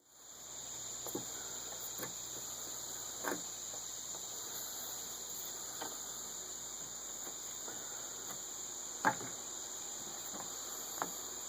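Insects chirping steadily in a continuous high-pitched drone, with a few faint clicks and taps, the most distinct about nine seconds in.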